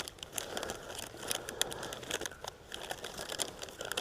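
Close rustling and crinkling from someone rummaging through a tackle box of fishing lures: a string of small irregular clicks and crackles.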